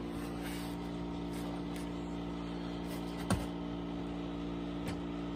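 Steady low electrical or machine hum, with one light knock about three seconds in.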